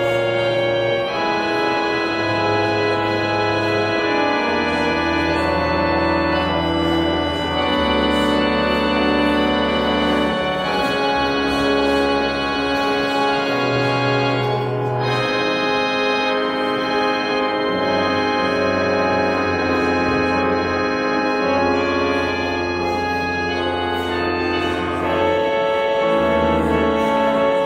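Organ playing a slow prelude: sustained chords over long held bass notes that change every second or two.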